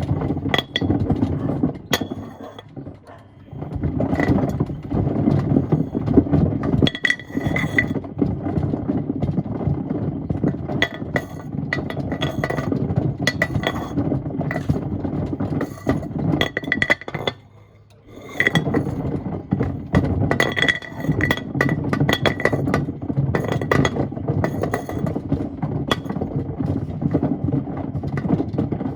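Stones and pieces of wood tumbling in the turning drum of a Miele washing machine: a dense clatter of sharp clinks, knocks and scraping. The clatter drops away briefly twice, near the start and about two-thirds of the way through, then resumes.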